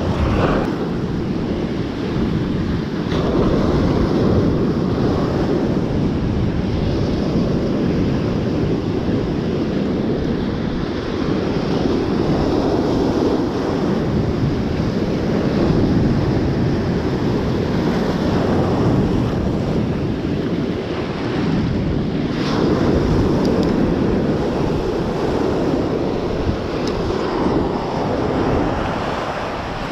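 Ocean surf washing onto a beach, rising and falling in slow swells, with wind buffeting the microphone.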